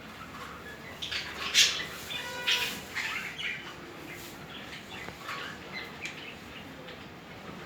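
Budgerigars chirping and chattering in short, quick calls, with a few louder, sharper bursts between one and three seconds in.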